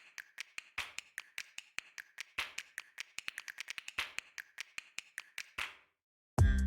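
A quick, uneven run of sharp clicks and taps, several a second, with stronger ones about every half second. They stop about six seconds in. Loud music with a heavy bass comes in just before the end.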